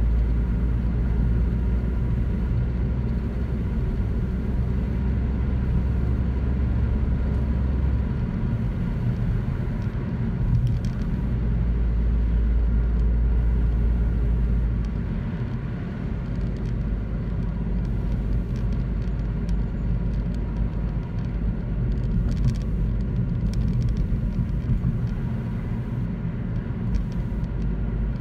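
Inside a car cabin while driving at a steady speed: a continuous low rumble of engine and tyres on the road. The deepest part of the drone eases and returns a few times.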